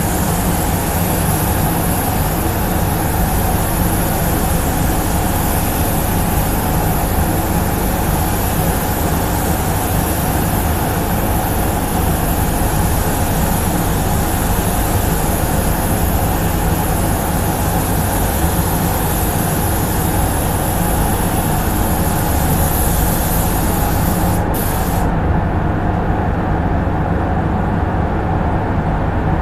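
Compressed-air paint spray gun hissing steadily over the constant hum of the spray booth's fans; the hiss cuts off suddenly near the end as the trigger is released, leaving the fan hum.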